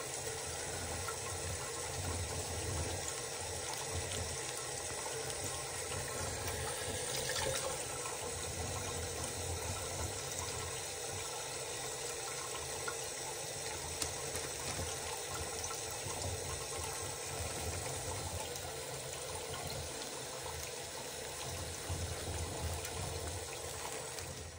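Water running steadily from a kitchen tap into a stainless steel sink.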